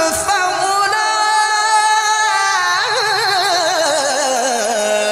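Male Quran reciter's voice in tilawah style, holding one long melismatic note with quick wavering ornaments, sung close into a microphone. In the last two seconds the line slides down in wavering steps and settles on a low held note.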